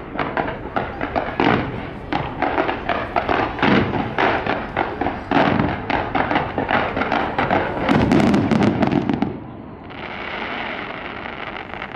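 Fireworks show: a rapid, dense barrage of bangs and crackles that runs for about nine seconds, then gives way to a softer, steady hiss near the end.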